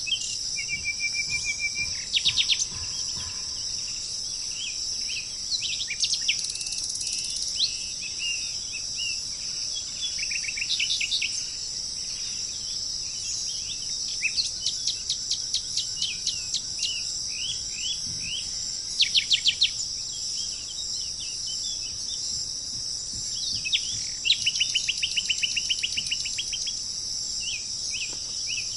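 Several birds calling and chirping, with quick runs of repeated sharp notes and trills coming and going, over a steady high-pitched insect drone.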